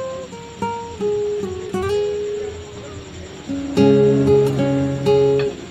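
Acoustic guitar music: a melody of single plucked notes, then fuller, louder strummed chords with a bass note from about four seconds in.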